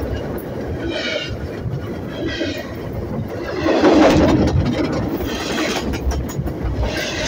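Train passing close by: a steady rumble and rattle of wheels on the rails, growing louder about four seconds in.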